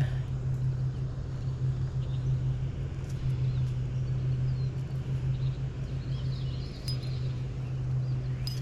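A steady low hum of a running motor or engine, with a few faint high chirps about six to seven seconds in.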